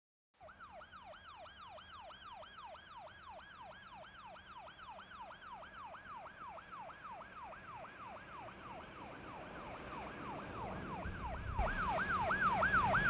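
Dub siren effect: a synthetic siren tone sweeping up and down about four times a second. It fades in from faint and grows louder throughout, with a low rumble and a hiss swelling under it near the end.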